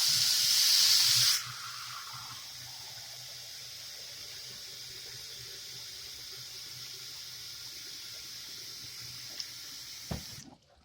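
Water running from a tap, hard for about the first second and a half, then a steady thinner stream until it is shut off near the end.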